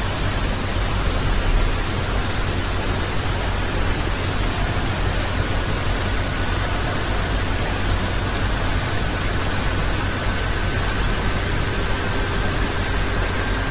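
Steady hiss of recording background noise with a low electrical hum underneath. A faint thin tone comes in about halfway and edges slightly higher.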